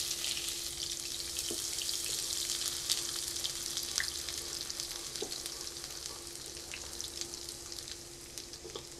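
Chopped garlic sizzling and crackling in hot oil in a nonstick pan, stirred now and then with a wooden spatula. The sizzle gradually gets quieter.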